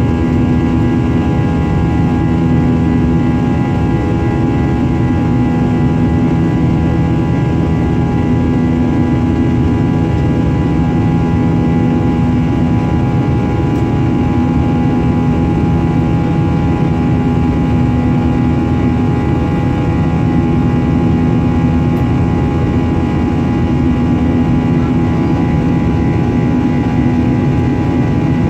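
Jet airliner cabin noise in flight: a steady engine drone and rushing air, with several constant tones over it and no change in level.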